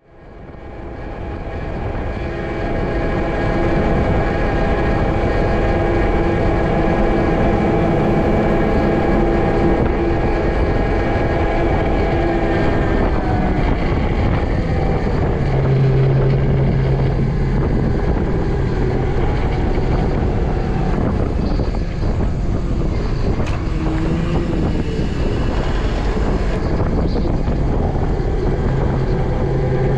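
A vehicle's engine running steadily, fading in over the first few seconds; its several held tones shift partway through as the engine note changes.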